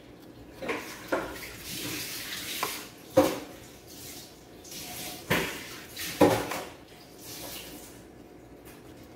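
A metal spoon clinking and scraping against glass as a thick milk-and-cream-cheese glaze is spooned onto cinnamon rolls. There are about five sharp clinks with short scrapes between them, the loudest a little after three seconds in and again after six.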